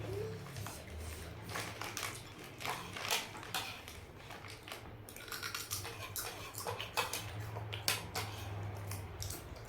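Eating sounds close to the microphone: irregular sharp clicks and crunches of food and utensils, over a low steady hum.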